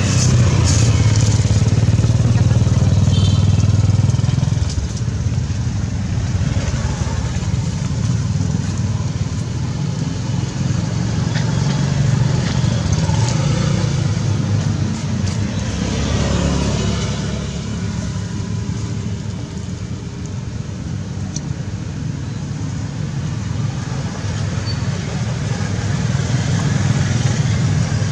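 A steady low rumble, loudest in the first four seconds and dipping a little around twenty seconds in.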